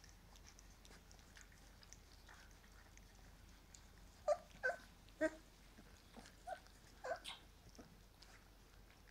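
Young puppies whimpering and yipping: about seven short, high-pitched whines in quick succession starting a little before the middle, the first three the loudest.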